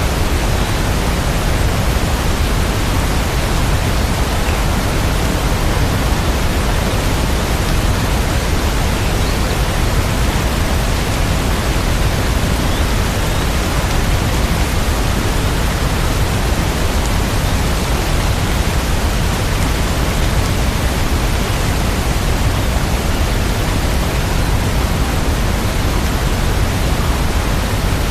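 Steady heavy rain: a dense, even hiss with no separate drops, thunder or music standing out.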